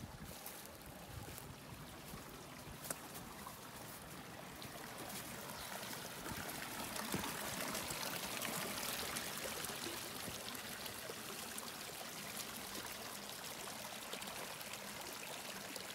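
Steady trickle of running water, like meltwater runoff, with a small click about three seconds in. The trickle swells somewhat near the middle.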